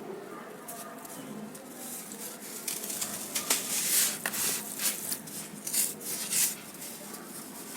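Lumps of dry, crunchy sand crumbling in water with a wet fizzing crackle and scattered sharp crunches and clicks, which come thicker and louder from about three seconds in.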